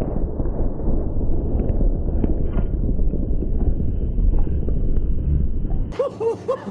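Deep low rumble of a Tannerite binary-explosive blast rolling on after the detonation, heavy in the lowest bass. Near the end it cuts off suddenly, giving way to a run of short chirping sounds.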